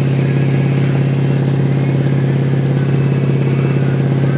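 Inboard engine of a Malibu wakeboard boat running at a steady surfing speed, a constant low drone that holds one pitch, over the rushing wash of the boat's wake.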